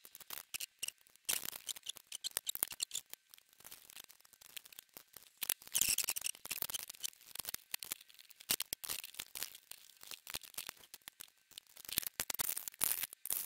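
Panasonic RX-FS430 radio cassette player being reassembled by hand: a steady run of irregular plastic clicks, taps and scrapes as the circuit board is fitted into the plastic case and the case is handled and closed.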